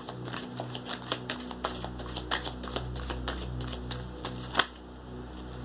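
A deck of oracle cards being shuffled, a quick run of card flicks and riffles with a sharper snap about four and a half seconds in, over soft background music.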